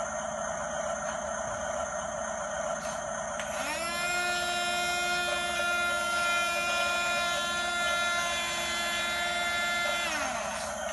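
Remote-control model bulldozer's motor whining: it spins up about three and a half seconds in, holds a steady pitch, and winds down near the end, over a steady mechanical hum.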